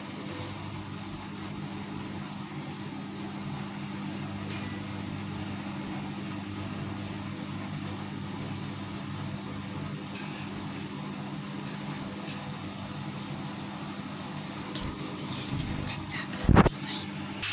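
Vestel CM8710 washing machine running with a steady mechanical hum, and a single loud knock near the end.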